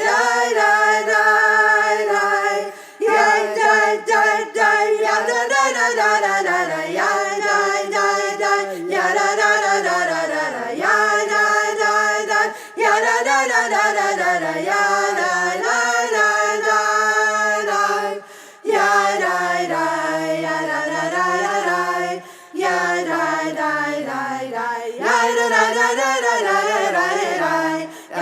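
Unaccompanied voices singing a melody in phrases a few seconds long, with short breaks between phrases.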